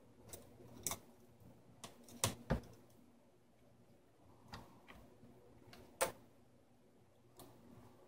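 Irregular light clicks and knocks of a laptop motherboard and its plastic bottom case being handled and pried as the board is worked loose, the loudest a pair about two and a half seconds in and a single click about six seconds in, over a faint steady hum.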